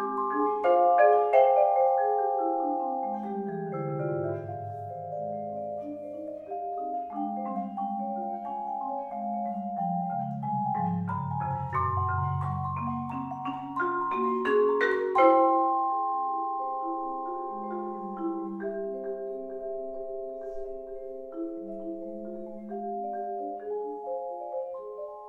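Vibraphone and marimba playing a slow duet: long ringing vibraphone chords over low marimba notes that step downward, twice. It swells to its loudest about fifteen seconds in, then thins to quieter held chords.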